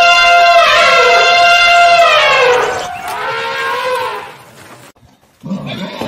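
Elephant trumpeting: one long, loud call on a held pitch that slides down near the end, then a second, shorter and quieter call about three seconds in.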